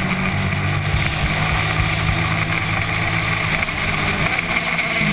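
Sport motorcycle engine running at high revs at racing speed, with steady wind rush over the onboard camera; the engine note drops once near the start and rises again near the end.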